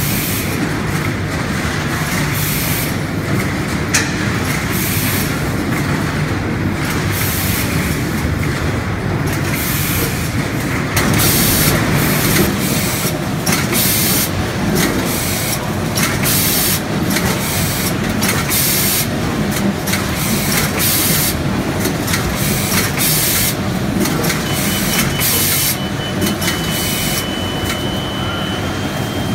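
Onion packing line with AFFELDT AVN 955 net clipping machines and a weigher running: a dense, steady mechanical clatter with short hisses recurring every second or so. A thin high tone comes in near the end, first broken, then steady.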